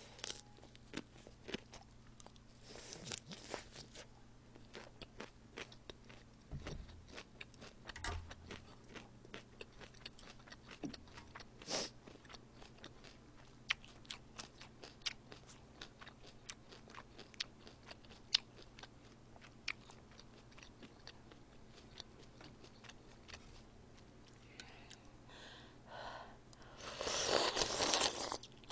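Close-miked chewing of crisp salad greens: many small, sharp crunching clicks. Near the end comes a louder, longer slurp as udon broth is sipped from a spoon.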